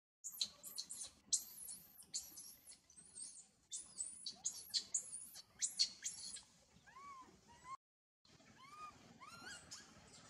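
A baby macaque screaming in rapid, very high-pitched shrieks through the first six seconds or so. After a brief break, softer rising-and-falling chirps follow near the end.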